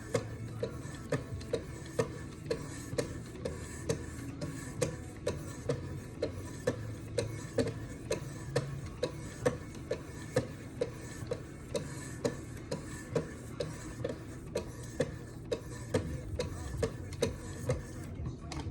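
Wicked Edge 1000-grit sharpening stones stroked in turn along a knife edge, a steady rhythm of sharp clicks a bit over two a second: the honing stage of sharpening.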